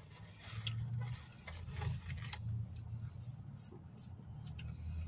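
Soft clicks and rustles of hands picking fast-food nuggets and fries out of cardboard boxes, over a low steady hum.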